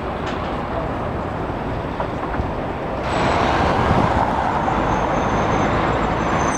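Steady street traffic noise, growing louder about three seconds in.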